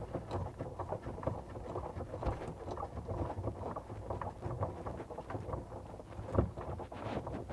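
Hands wrapping Teflon tape onto a threaded water-supply fitting: a run of small rustles and light clicks over a low rumble, with one sharper knock about six seconds in.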